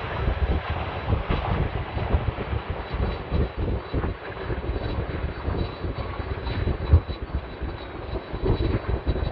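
Boeing 767 freighter's jet engines running as it lands, heard from a distance over a gusty, uneven low rumble. A brief louder thump about seven seconds in.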